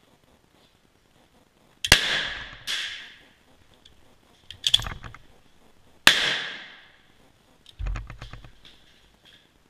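Two shots from a K31 straight-pull rifle in 7.5x55 Swiss, about four seconds apart, each ringing on for about a second, with a second, fainter bang under a second after the first. After each shot the straight-pull bolt is worked back and forth in a quick run of metallic clicks.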